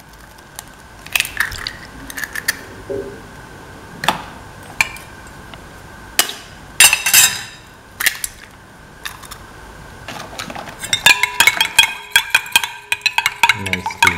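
Two eggs being cracked into a bowl: a handful of separate sharp knocks and clinks against the bowl and a steel ladle. From about eleven seconds in, quick, continuous clinking as the steel ladle beats the eggs in the bowl.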